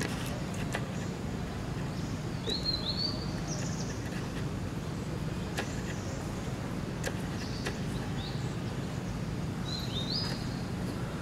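Forest ambience: a steady low hum of background noise, with a bird giving short rising chirps a few times, about two and a half seconds in and again near the end, and scattered faint clicks.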